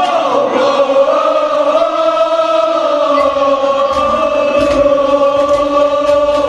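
Men's voices chanting a Kashmiri marsiya, a mourning elegy, in long held, slowly bending notes through a microphone and PA. From about halfway through, regular dull thumps of chest-beating (matam) come in under the singing.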